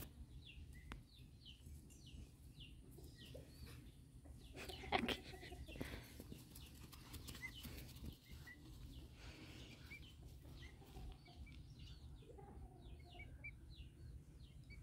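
Emu chicks peeping: many faint, short, high chirps scattered throughout, with one louder, lower call about five seconds in.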